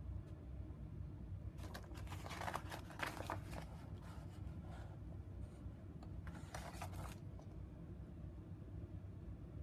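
Glossy magazine pages rustling as they are turned and handled, in two spells: a longer, louder one about two seconds in and a shorter one about six seconds in, over a low steady hum.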